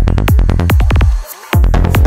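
Psytrance at 144 BPM: a steady four-on-the-floor kick drum with a rolling bassline. Just past a second in, the beat cuts out for a short break of about a third of a second, then comes back with a new high synth pattern.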